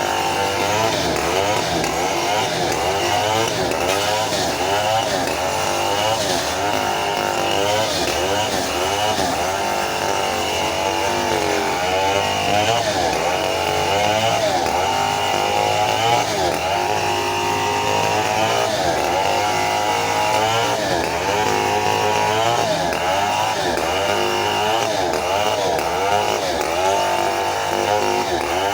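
Stihl 070 two-stroke chainsaw cutting lengthwise through a teak log under full load. Its engine note dips and recovers over and over, about once a second, as the chain bogs and frees in the wood.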